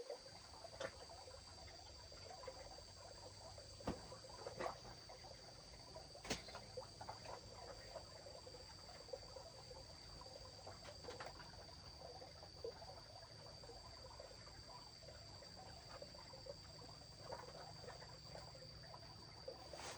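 Faint steady high-pitched trilling of insects such as crickets, with scattered soft crackling and a few sharp clicks, the loudest about four and six seconds in.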